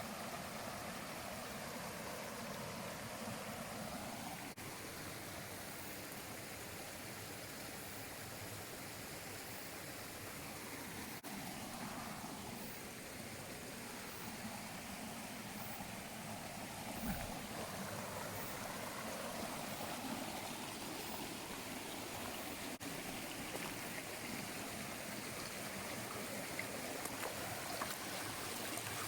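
Steady rush of running water from a mountain stream, with one brief low thump a little past the middle.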